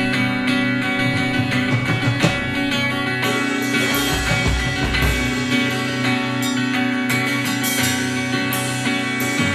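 Live rock band playing: guitars over a drum kit, a full steady wall of sound.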